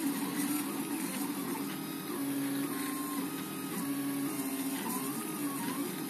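Portabee RepRap 3D printer printing: its stepper motors whine as the print head moves, the pitch holding steady on straight runs and sliding up and down in short arcs as the moves change speed and direction.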